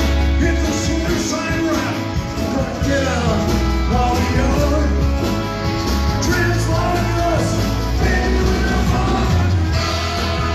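Live rock band playing loud and steady: electric guitars, bass, drums and keyboards under a male lead vocal, heard through a phone's microphone close to the stage.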